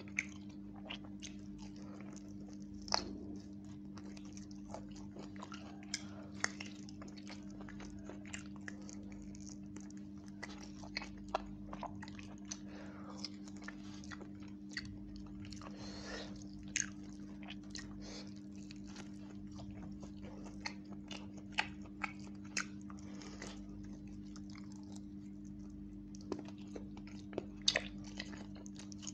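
Close-miked chewing and biting of roast chicken and rice eaten by hand: a run of irregular mouth clicks and crunches, a few sharper ones standing out. A steady low hum runs underneath.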